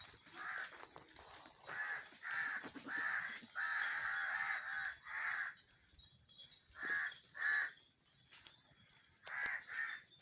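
A series of about ten short animal calls in two clusters, one call lasting about a second, the others briefer.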